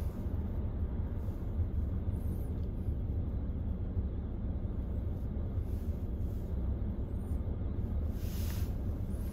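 Steady low rumble of a car idling, heard from inside the cabin while stopped at a light. A brief hiss comes near the end.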